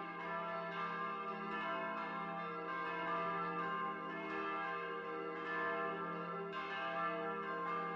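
Several church bells pealing together, the Easter ringing that announces the Resurrection. Overlapping strikes come about every half second to a second and ring on into one another.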